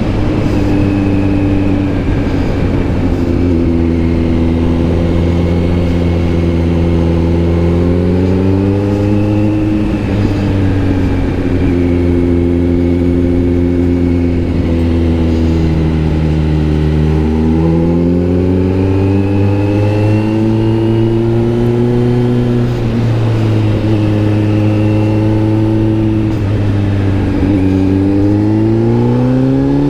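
Kawasaki Z900 SE inline-four running through an SC Project S1 aftermarket exhaust while riding. The engine note holds steady for stretches, dips and climbs with throttle and gear changes several times, and rises sharply near the end.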